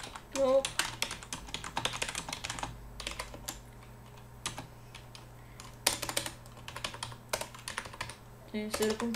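Typing on a computer keyboard: a quick run of keystrokes for the first two or three seconds, then scattered single keystrokes and short runs.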